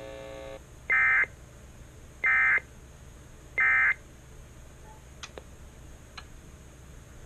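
Emergency Alert System end-of-message (EOM) signal: three short bursts of high, warbling digital data tones, about a second and a half apart, closing the tornado warning alert. A steady buzzing tone cuts off about half a second in, just before the first burst.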